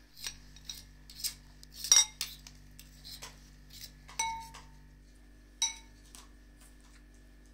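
A metal spoon clinking against a ceramic bowl during a meal. There are a series of short clinks, the loudest about two seconds in, and two later clinks that ring briefly.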